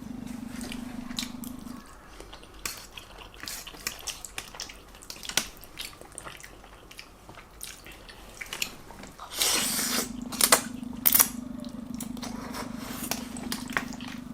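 Close-miked eating of spaghetti and meatballs: wet chewing and slurping with scattered clicks of a fork on a plate. A steady low hum sounds at the start, stops about two seconds in, and returns about halfway through.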